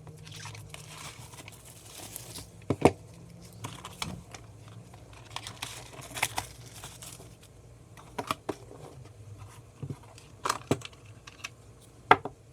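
Handling noise: plastic or paper packaging crinkling and rustling, with several sharp clicks and knocks of objects being set down or handled.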